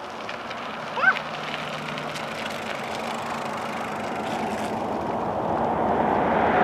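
A passing vehicle on the highway approaching, its road noise growing steadily louder. About a second in, a short rising squeak.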